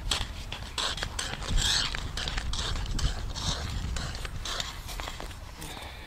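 Ice-skate blades scraping and clicking on natural ice in short, irregular strokes, over a steady low rumble.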